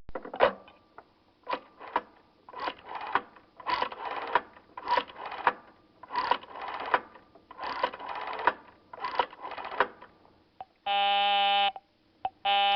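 Telephone sound effect: about ten seconds of irregular short clicks and rattles, as of a phone being dialed, then two long steady electronic beeps of a phone line tone near the end.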